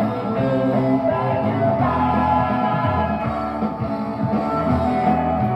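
A rock song with singing and guitar, played back from a cassette tape on a Technics M6 stereo cassette deck.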